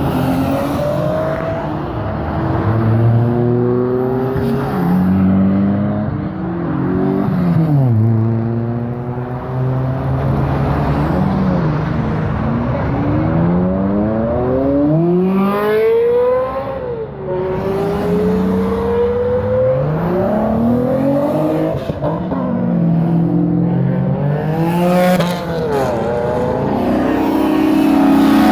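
Several sports cars' engines accelerating away one after another, each revving up in rising sweeps and dropping back at the gear changes, over other engines idling and running.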